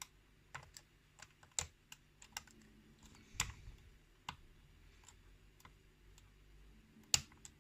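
Faint, irregular small metallic clicks of a lock pick working the pin stacks of a pin-tumbler lock cylinder held under tension, with a sharper click about seven seconds in.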